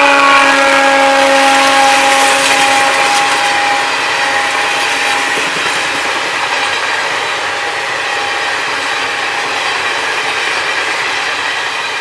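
An electric locomotive's horn drops in pitch as the engine goes by and then holds lower, fading over about five seconds. Under it, the Garib Rath express coaches rush past at speed, wheels clattering on the rails, slowly fading.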